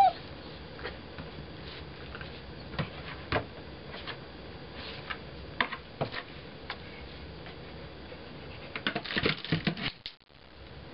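Sheltie nosing and pawing at a cardboard box: scattered light taps and knocks, then a quick flurry of them about nine seconds in, with a brief high squeak at the very start.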